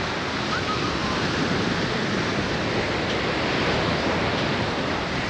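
Ocean surf washing in over a rocky shore: a steady, rushing noise that slowly swells.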